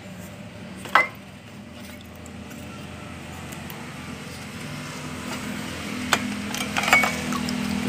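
Clicks of a clear plastic box lid being unclipped and lifted: one sharp snap about a second in and a few more clicks near the end, over a steady low hum that slowly grows louder.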